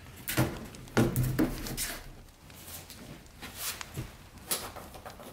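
Helinox Cot One Convertible being handled as it is flipped over and set down: a few sharp knocks and clatter from its frame and leg bars in the first second and a half, then light fabric rustling and a few scattered clicks.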